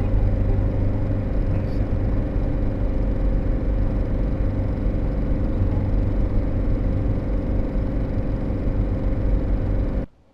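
Camper van engine and road noise while driving: a steady low rumble with a constant hum that cuts off suddenly near the end.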